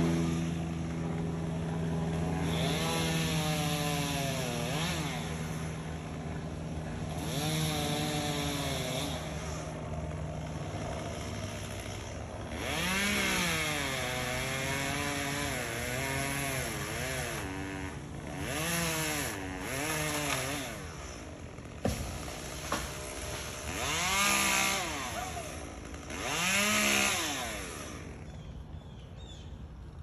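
Chainsaw running up in a tree: it idles at a steady pitch at first, then is revved up and back down again and again as the climber cuts through a limb. Two sharp knocks come about two-thirds of the way through.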